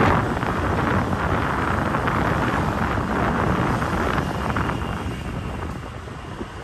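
Wind buffeting the microphone and road noise from a moving vehicle, dying down after about five seconds.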